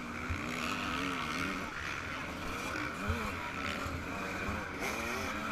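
Single-cylinder two-stroke engine of a Yamaha YZ125 motocross bike being ridden, its pitch rising and falling as the throttle opens and closes, with wind noise and a few low thumps.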